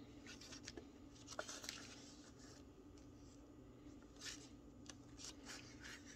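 Faint rustling of paper pages being turned in a spiral-bound planner, a series of soft page flips over a low steady hum.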